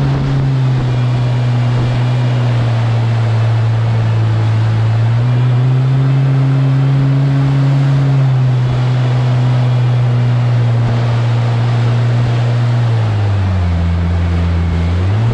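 Small aluminium jet boat's engine running hard under way, its pitch easing down about half a second in, rising around five seconds in, dropping back around eight seconds, then falling lower near the end before climbing again. A steady rush of water and spray runs underneath.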